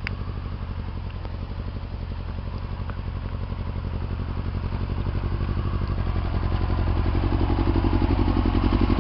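Sport motorcycle engine running at low revs with an even pulsing beat, growing steadily louder as the bike comes up close.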